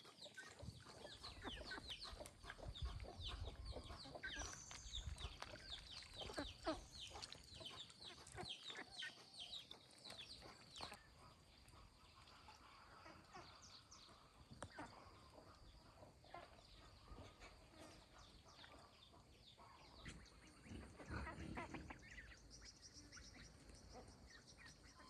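Faint calls of a poultry flock: many short, high peeps overlapping, thick for about the first ten seconds and then thinning out. A faint steady high tone runs underneath.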